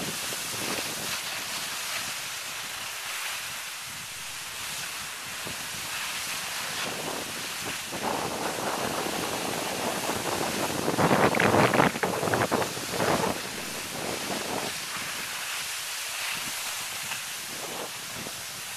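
Wind rushing over the microphone and skis sliding and hissing on snow during a downhill run, with a louder stretch of rushing about eleven to thirteen seconds in.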